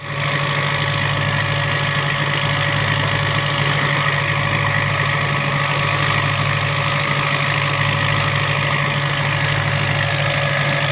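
Borewell water jetting straight up from an open pipe under pump pressure and crashing back down into standing water: a loud, steady rushing roar with a low hum underneath.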